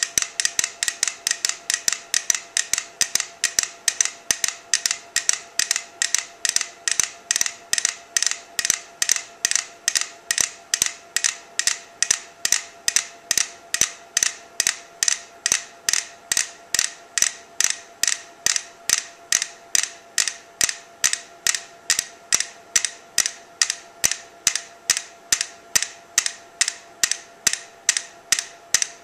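Four clockwork pendulum metronomes ticking in unison. Their ticks merge into one sharp, even beat of nearly three a second, the sign that the loosely coupled metronomes on the shared rolling board have fallen into sync.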